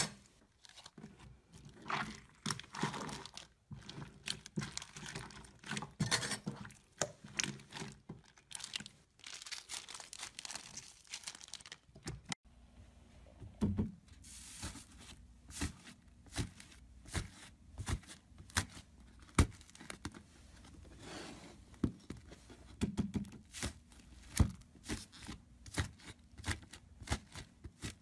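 Hands squeezing and tearing slime: first a pink glitter slime squelching and crinkling in its cut-open plastic bag, then, after an abrupt change about twelve seconds in, fluffy blue and pink slime being pressed and pulled apart, with many short crackles and pops.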